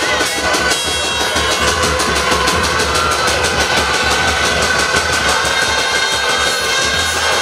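Stadium crowd of supporters with a drum beating a fast, even rhythm, and a steady high tone held over the noise throughout.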